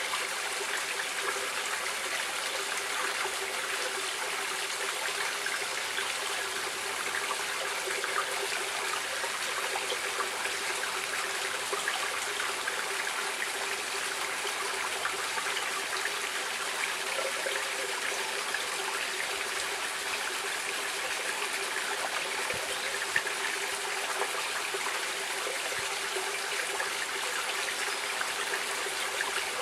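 A stream flowing steadily: an even, continuous sound of running water that holds the same level throughout.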